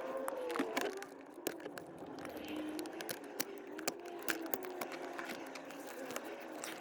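Small metallic clicks and ticks of snips and staples as the wire staples holding a worn leather gear stick gaiter are cut and prised out of the console trim. A faint wavering tone runs underneath.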